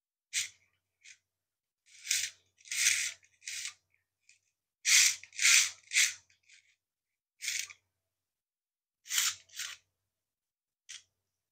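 Hard plastic model-kit parts scraping, rubbing and clicking against each other in the hands as they are worked and pushed into place, about a dozen short irregular rasps, the loudest clustered in the middle.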